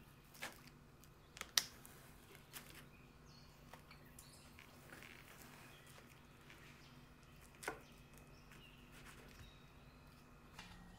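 Kitchen knife cracking through the crisp wafer sheets of a frozen ice-cream cake: a few short sharp cracks, a cluster in the first two and a half seconds and one more near eight seconds, over a faint steady hum.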